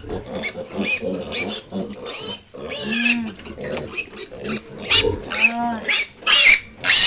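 Two-week-old piglets squealing and grunting in a rapid string of short calls, the excited noise of hungry piglets jostling to be fed. The shrillest squeals come near the end.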